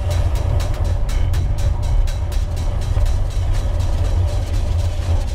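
Wind buffeting the microphone with a deep rumble and tyre noise on the trail from a moving gravel bike, with many quick clicks and ticks several times a second.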